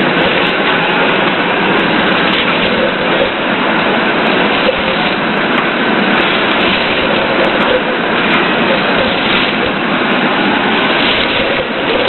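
Loud, steady noise of industrial machinery running on a metal-working factory floor, an even rushing din with no clear rhythm or tone.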